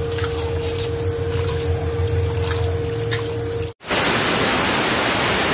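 Tap water running into a steel bowl of dal being rinsed by hand, with a steady hum. About four seconds in, after a brief break, comes a loud even hiss of the rinse water being poured out of the bowl into the steel sink for about two seconds.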